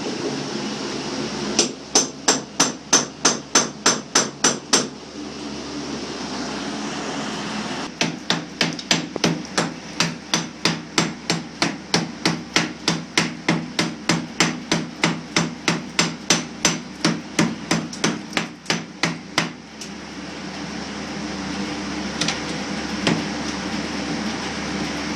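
Rapid hammer blows on a thick mortar mud wall, about three to four a second. A run of about a dozen strikes, a pause, then a longer run of about forty, over a steady fan hum.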